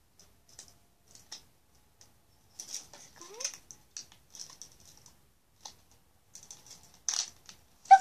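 Small plastic toy packaging being handled and opened by hand: irregular light clicks and crinkles, with a short rising squeak about three and a half seconds in.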